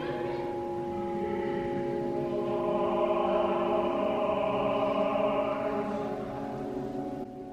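Background music of slow, sustained chords, with a change near the end.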